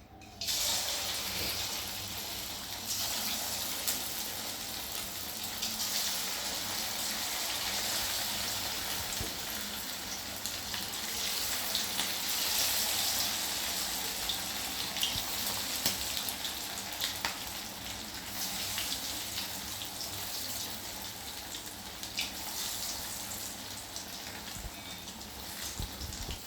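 Marinated chicken pieces coated in cornflour and egg sizzling and crackling as they fry in hot oil in a kadai on a low flame. The sizzle starts suddenly as the meat goes in.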